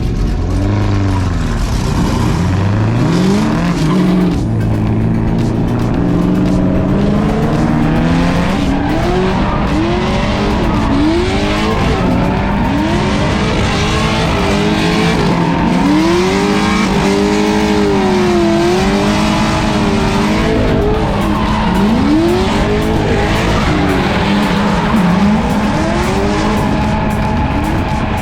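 Drift cars' engines revving up and falling back again and again, with tire squeal, as a Mazda Miata and a C6 Corvette run a tandem drift battle.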